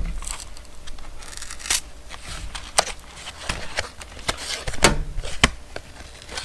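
Cardboard packaging tearing and crinkling as a plastic folding rule is worked out of it, with scattered sharp clicks and short scrapes.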